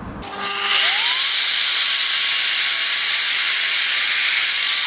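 Evolution F255SMS sliding mitre saw starting up, its motor pitch rising in the first second, then its 255 mm TCT multi-material blade cutting through a thick piece of timber with a loud, steady, high hiss. The sound stops abruptly near the end.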